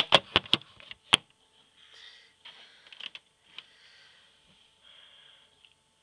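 Close handling noise: a quick run of sharp knocks and clicks in the first second or so, then faint, scattered rustling.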